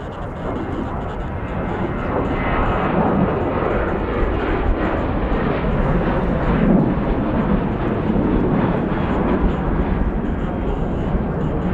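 Boeing 737 airliner's twin jet engines at takeoff thrust: a loud, steady rushing noise that grows louder over the first few seconds as the plane lifts off and climbs out past.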